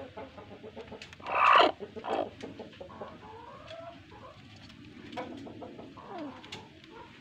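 Chickens clucking: one loud call about a second and a half in, a shorter one just after, then quieter, softer calls.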